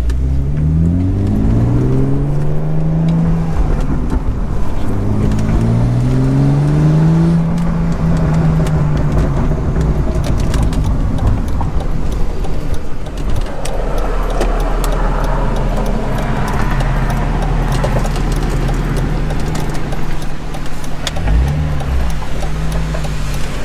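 BMW E46 330ci's inline-six accelerating hard through two gears, its note rising twice, then cruising with a steady engine and road drone.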